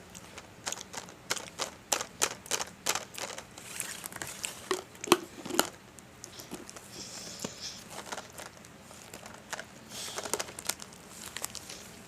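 Plastic snack packaging crinkling and crackling as it is handled, with irregular sharp clicks and a few soft knocks.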